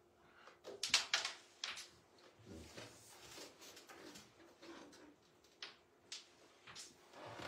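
Carrom striker and wooden carrom men clicking on the board: a quick cluster of sharp clacks about a second in, the loudest, then single clicks spread through the rest, one as the striker is flicked into the pieces near six seconds.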